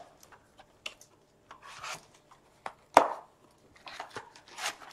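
A cardboard blaster box of trading-card packs being opened by gloved hands: scattered scrapes, clicks and rustles of the cardboard, with one sharp snap about three seconds in.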